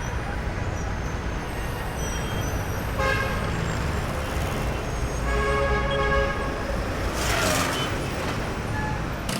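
City street traffic rumbling, with vehicle horns honking about three seconds in and again for a longer stretch around five to six seconds in, and a short hiss near the end.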